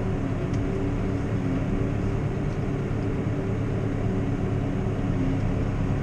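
Valtra tractor's diesel engine running at a steady drone, heard from inside the cab, with the sand sweeper attachment working.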